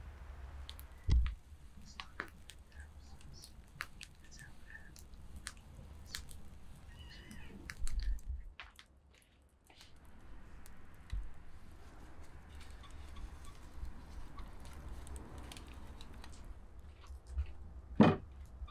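Quiet ambience with a low rumble and many scattered small clicks and ticks, and two louder sharp knocks, about a second in and near the end.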